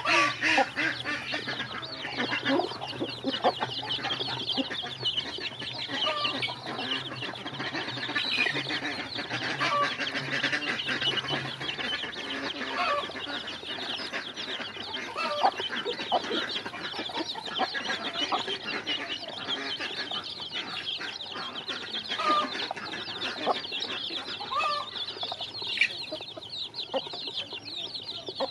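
A crowd of chicks peeping continuously in a dense high chorus, with short lower clucks from a hen now and then.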